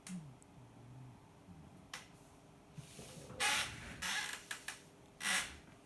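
A sleeping pet snoring softly in low breaths, then a sharp click about two seconds in and a few short, louder rushes of hissing noise in the second half.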